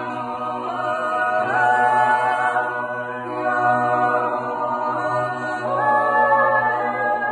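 A small group of men's and women's voices singing wordless a cappella in close harmony, in the style of an Appenzell natural yodel (Zäuerli). The voices hold long chords that slide up or down to the next chord every second or two, over a low held drone.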